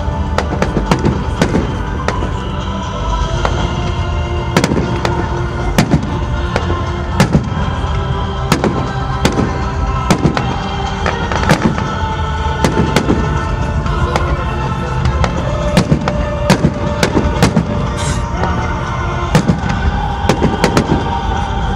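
Fireworks display: shells bursting in a continuous barrage, sharp bangs about one to two a second, over music playing.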